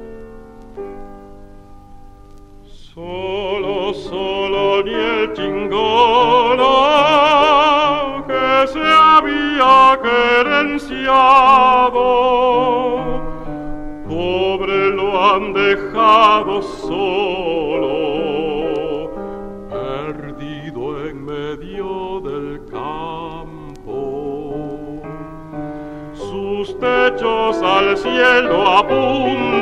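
A baritone sings a classical art song with vibrato, accompanied by piano. A quiet piano passage leads in, and the voice enters about three seconds in.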